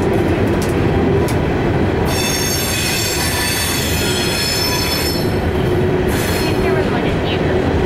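Empty rock gondola cars rolling past with a steady noise of steel wheels on rail. From about two seconds in to about five seconds, a high-pitched wheel squeal rings out over it as the wheel flanges grind through the curve.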